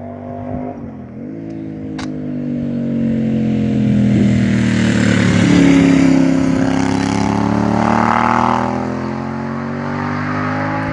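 Moto Guzzi Bellagio's 940 cc V-twin, breathing through Quad D aftermarket mufflers, accelerating past at close range. The engine note dips briefly at a gear change about a second in, rises to its loudest as the bike passes near the middle, then falls in pitch as it pulls away.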